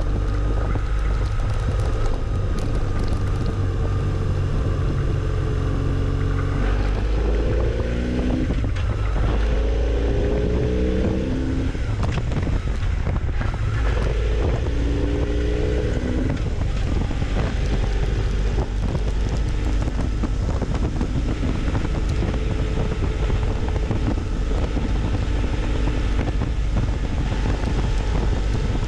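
Motorcycle engine running under way, with wind rushing over the microphone. Between about a quarter and half of the way in, the engine note rises in several short steps as it shifts up through the gears, then settles to a steady cruise.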